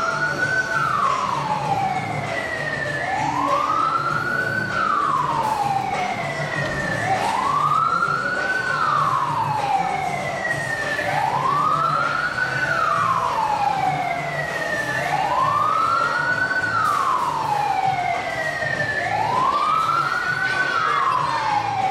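A siren wailing, its pitch rising over about a second and a half and falling back more slowly, the cycle repeating evenly about every four seconds.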